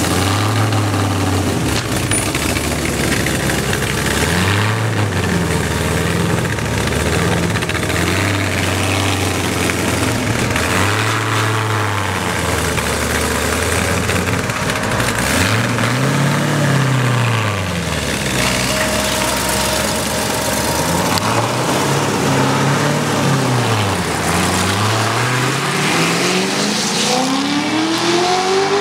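Chevrolet Corvette C6 Z06's 7.0-litre V8 idling with a low burble, blipped up and back down about five times, then accelerating hard as the car pulls away, the pitch climbing steadily in the last few seconds.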